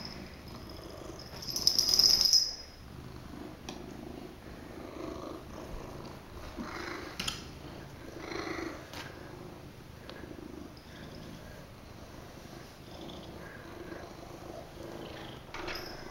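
House cat purring steadily while being stroked. About two seconds in there is a brief, loud, high scratchy noise.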